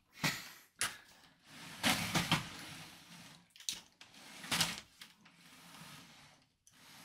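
A large plastic brick-built model being turned around on a wooden tabletop: its base scrapes and slides across the wood in two longer stretches, with a few knocks as it is gripped and set down.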